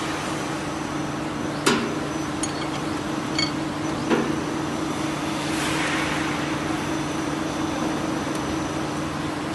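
Picket-fence forming machine running with a steady motor hum, with sharp metallic clanks a little under two seconds and about four seconds in, and short ringing metal pings between them.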